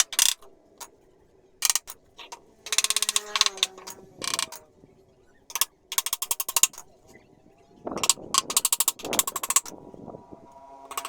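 Several short bursts of rapid mechanical rattling impacts, with pauses between them.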